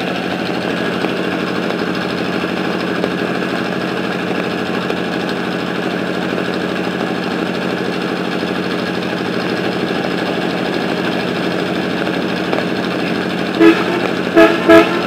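A steady engine drone with a constant low hum throughout, and a vehicle horn tooting three short times near the end.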